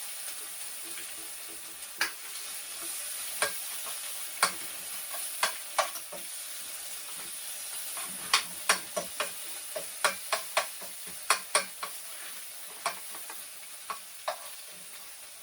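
Irregular sharp clicks and taps of kitchen utensils working food, some in quick clusters, over a steady high hiss.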